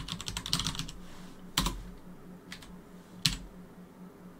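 Typing on a computer keyboard: a quick run of keystrokes in the first second, then three single key presses spaced about a second apart.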